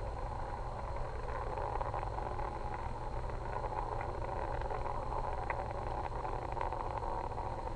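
Steady rushing roar of Space Shuttle Atlantis's rocket engines during ascent, with a low rumble underneath and a few faint crackles, as the main engines throttle back up after the max-Q bucket.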